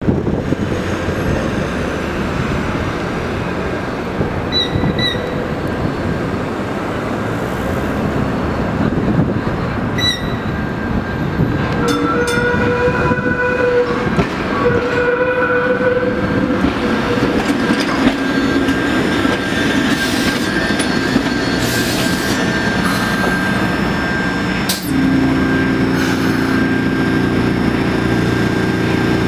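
Kawasaki K-Car light-rail trolley running on curved street track, its wheels squealing with several high pitched tones about halfway through as it rounds the curve. Near the end the sound switches suddenly to a steady hum from a trolley standing close by.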